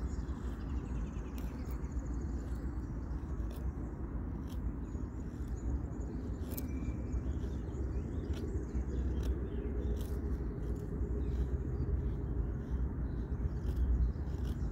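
A cheap survival knife shaving curls off a dry pine stick to make a feather stick, giving soft scraping strokes and scattered small clicks. Under it runs a steady low outdoor rumble.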